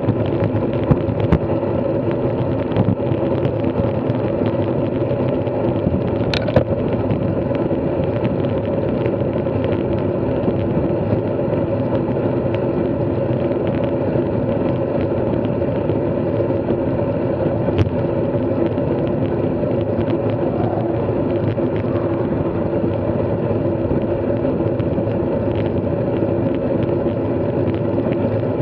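Steady riding noise from a bike moving at an even speed: a continuous hum that does not change, with a sharp click about six seconds in and another near eighteen seconds.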